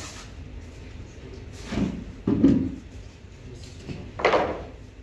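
White melamine-faced particleboard cabinet panels being handled and pressed together during assembly: a few dull wooden bumps and scrapes, the loudest about halfway through.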